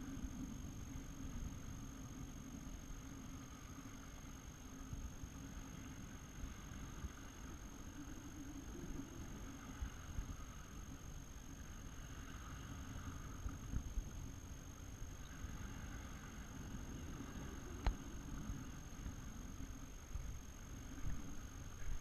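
Wind rumbling and buffeting on the camera microphone, an uneven low noise with no distinct events. A faint steady high-pitched whine runs under it.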